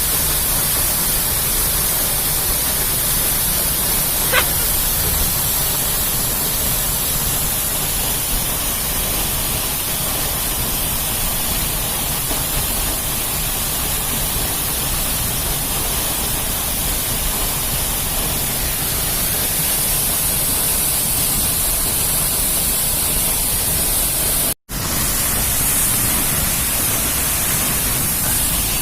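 Waterfall: a steady rush of falling water. Near the end it drops out for an instant.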